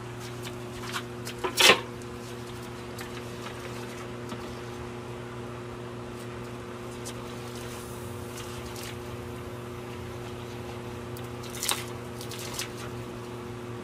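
A steady machine hum throughout, with a loud sharp knock about two seconds in as the lid of a charcoal barrel grill is opened, and a softer clatter near the end as a banana-leaf-wrapped fish is laid on the grill grate.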